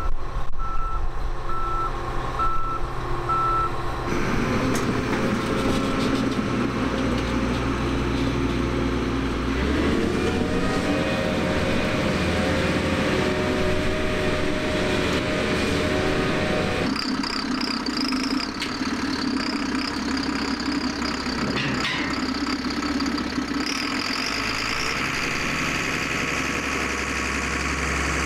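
John Deere combine engine running as the machine pulls out of a shed, with its backup alarm beeping about once a second for the first few seconds. The engine note then shifts abruptly several times.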